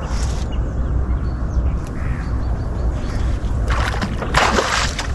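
Steady low wind rumble. From about three-quarters of the way in come several loud splashes as a hooked fish thrashes at the surface beside the boat while it is reeled in.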